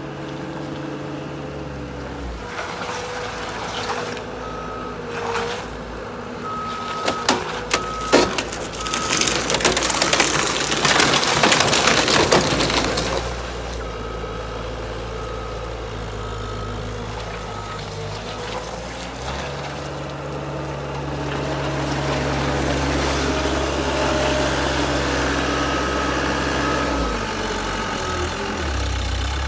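Skid steer engine running, its speed changing a couple of times, with its reversing alarm beeping in spells. About eight seconds in come sharp knocks, then a few seconds of loud crunching and scraping as the car body is rolled back over.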